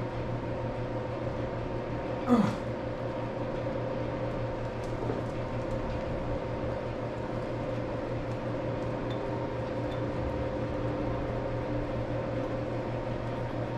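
Steady mechanical hum of workshop equipment. A single short, louder sound with a falling pitch comes about two seconds in, and there are a few faint clicks as gears are worked loose by hand inside the opened lathe apron.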